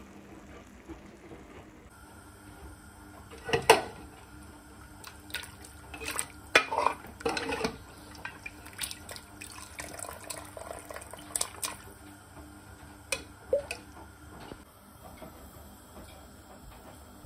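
A metal ladle knocking and scraping against a cooking pot of boiled beef in broth, in a string of irregular clinks and clanks, the loudest a few seconds in. A faint steady hum runs underneath.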